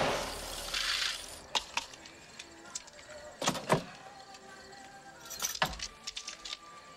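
A rushing noise fades out over the first second and a half. Then comes a string of sharp clinks and knocks, glasses and bottles being handled while a drink is mixed, the loudest a few seconds in, over quiet film score.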